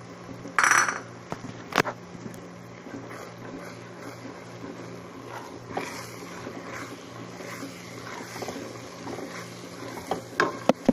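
A wooden spoon stirring berbere spice into cooked-down onions in a metal pot, knocking and scraping against the pot. There is a loud clatter about half a second in, a sharp knock shortly after, and a quick run of knocks near the end.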